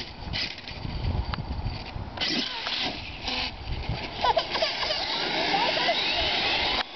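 HPI Savage Flux HP brushless electric RC monster truck driving over the curb and across asphalt, its tyres rumbling. The electric motor's whine rises in pitch as the truck speeds away, about five seconds in.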